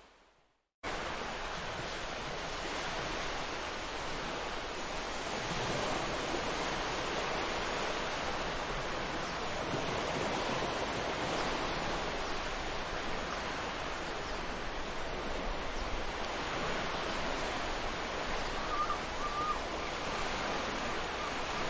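Ocean surf washing onto a beach: a steady rush of breaking waves that swells and ebbs. It follows a brief dropout to silence at the very start. A short bird call sounds near the end.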